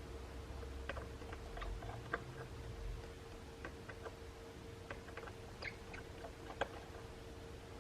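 Faint, irregular small clicks and ticks of a tri-point screwdriver and tiny screws on the metal bracket inside an opened iPhone 11, over a faint steady hum.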